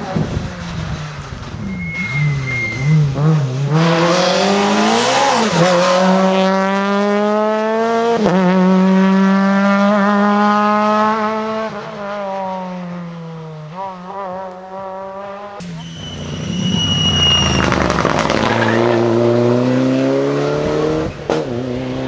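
Rally car engines at full throttle, revving hard with the pitch climbing and dropping through gear changes as the cars pass. After a sudden change, a second car comes in with a brief high whine over its engine.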